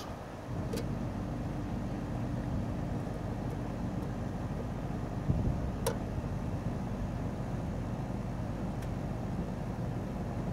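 Outdoor condenser unit of a central air conditioner running with a steady low hum from its compressor and fan. A few faint clicks are heard.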